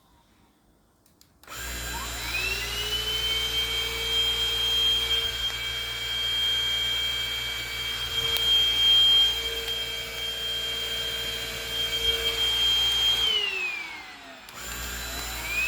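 Vacuum cleaner switched on about a second and a half in, its motor whine rising quickly to a steady high pitch and running on. Near the end it is switched off, the whine falling away, then switched on again and rising once more.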